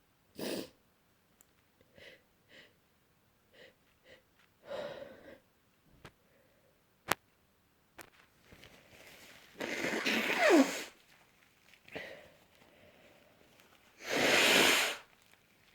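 A person with a cold sniffling and catching short breaths, then sneezing twice, once about ten seconds in and again near the end. The first sneeze carries a voiced cry that falls in pitch.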